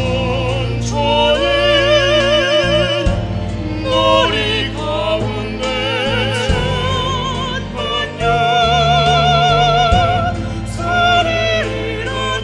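A small vocal ensemble singing in parts with strong vibrato over sustained low accompaniment.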